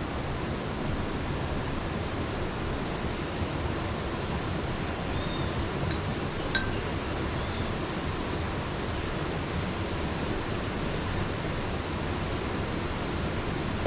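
Steady rushing of a nearby river, with a single sharp clink about halfway through.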